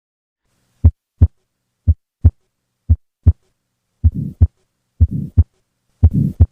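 Auscultated heart sounds beating about once a second: three beats of clean paired first and second heart sounds, then from about four seconds in a harsh murmur fills the gap between the first and second sound of each beat. This is a systolic murmur, the systolic ejection murmur of tetralogy of Fallot.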